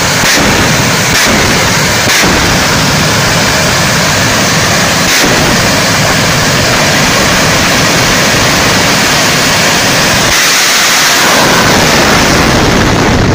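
Jet-powered truck's jet engine running flat out with its afterburner lit, a very loud, steady blast of noise broken by a few sharp pops in the first five seconds or so.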